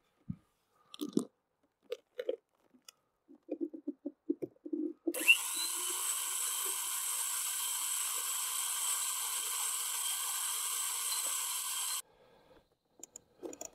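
Old corded electric drill: a few small clicks and knocks as it is handled, then it is switched on about five seconds in, spins up with a short rising whine and runs steadily for about seven seconds while drilling a hole, then stops suddenly.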